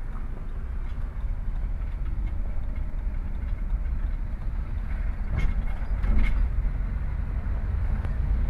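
Car driving, heard from inside the cabin: a steady low rumble of engine and road noise, with a couple of brief knocks a little past the middle.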